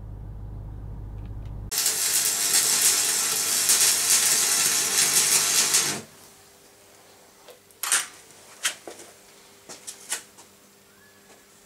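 A low steady hum, then an arc welder crackling and sizzling for about four seconds while laying a weld bead, stopping abruptly. After that come a few faint clicks and taps.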